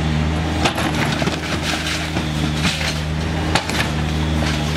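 New Holland B95 backhoe loader's diesel engine running steadily while its bucket breaks down a concrete-block wall, with repeated crunches and clatters of blocks and rubble falling.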